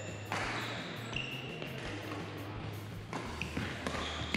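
Badminton play on a wooden sports-hall floor: a few sharp pops of rackets striking the shuttlecock, and short high squeaks of court shoes on the floor.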